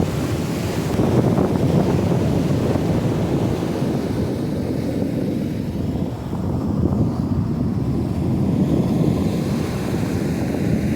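Wind buffeting the microphone, a steady low noise, over ocean surf on the beach.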